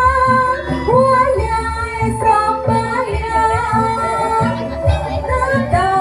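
Music with a woman singing a wavering melody over a steady drum beat.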